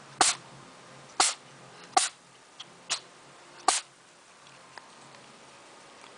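A cat sneezing five times in quick succession, short sharp sneezes about a second apart, the fourth one softer.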